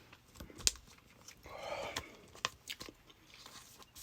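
Faint handling noise: a few sharp clicks and taps, with a short breathy rustle a little under two seconds in.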